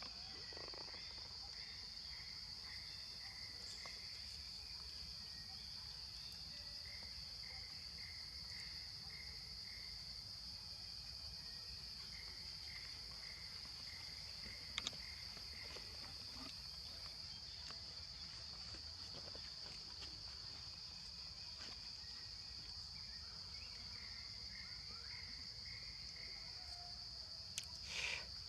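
Insects droning steadily at a high pitch, with runs of evenly spaced chirps over it. A sharp click about halfway through and a brief louder noise near the end.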